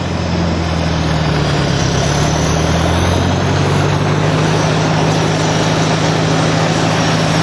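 Ford 641 tractor's four-cylinder engine running steadily on wood gas while the tractor drives along.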